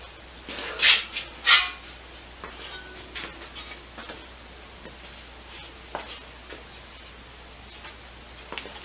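Metal tools and parts being handled: two sharp clatters about a second in, half a second apart, then scattered light clicks and taps.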